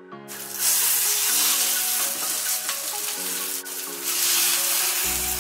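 Minced chicken patties sizzling as they fry in oil in a pan. The sizzling comes in suddenly just after the start and holds steady over soft background music.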